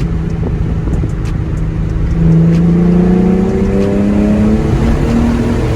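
Nissan 350Z's 3.5-litre V6 engine pulling under acceleration, its note rising steadily from about two seconds in, with a brief dip and a step up near the end.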